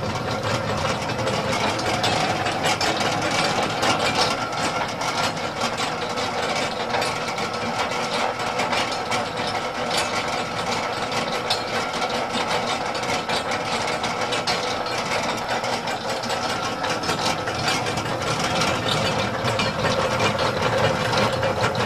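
Univex 20-quart belt-driven stand mixer running steadily, then shutting off abruptly right at the end as its timer runs out.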